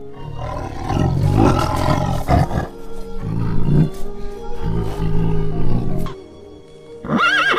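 Tiger roaring in three deep, long bouts over background music. Near the end a horse whinnies once, a short call that rises and falls in pitch.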